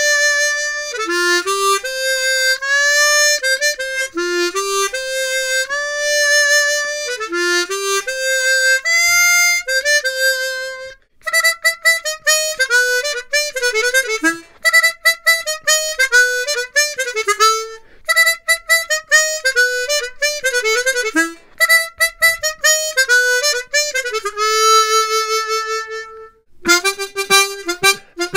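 Hohner ACE 48 12-hole chromatic harmonica playing a melody of single notes, with short breaks about eleven seconds in and near the end. Its tone is bright and shimmering, with a slightly raspy edge.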